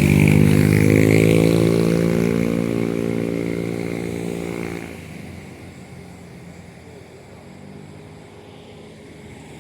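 Heavy road vehicle's diesel engine running loud as it passes close by, with a steady engine tone that drops away sharply about five seconds in, leaving a lower background drone.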